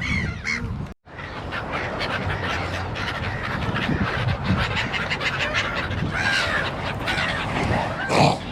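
Seagulls calling over a steady noisy outdoor background. The sound drops out briefly about a second in.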